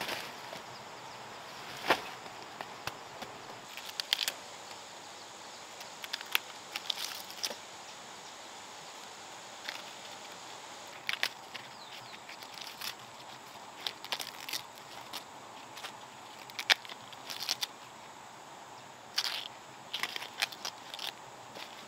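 Pieces of cut sugarcane stalk knocking and clattering against each other as they are tipped out and handled, in short, sharp, irregular clicks, over a steady high insect buzz.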